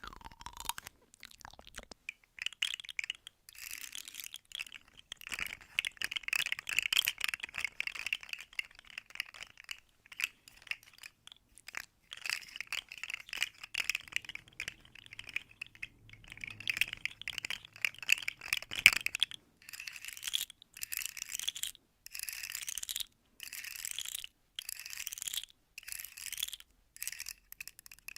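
ASMR fast tapping: dense runs of quick, light taps and clicks. From about two-thirds of the way through it breaks into short runs of about a second with brief pauses between them.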